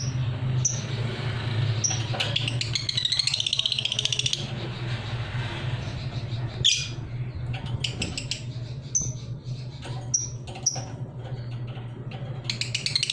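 Young lovebird practising its ngekek song: a rapid, trilling chatter of about two seconds starting around two seconds in, another starting near the end, with single short high chirps in between. A steady low hum runs underneath.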